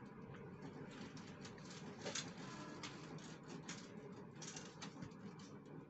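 Faint, irregular clicks and crackles of small snacks and wrappers being handled by a child's fingers, with a slightly louder crackle about two seconds in.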